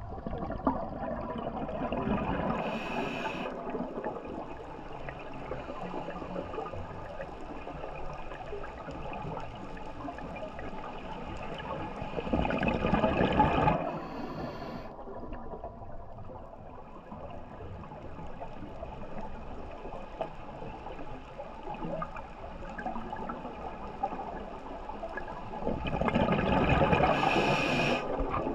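Scuba diver breathing through a regulator underwater: a muffled, steady rush of water noise, with three louder rushes of exhaled bubbles lasting a second or two each, a couple of seconds in, about halfway, and near the end.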